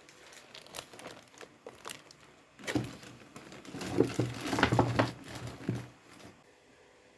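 Packaging being handled: rustling and crinkling with small clicks and knocks, loudest in the middle and quieting near the end.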